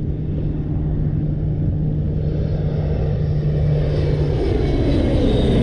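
Large transport aircraft flying over, its engines droning steadily and growing louder, with a high whine that falls in pitch near the end as it passes.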